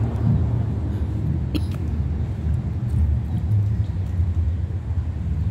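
Low, uneven outdoor rumble, with one sharp click about one and a half seconds in.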